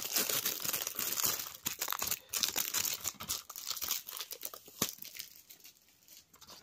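Plastic shrink-wrap being torn and crumpled off a DVD case: dense crinkling and crackling with many small snaps, one sharp click about three-quarters of the way through, then it dies down.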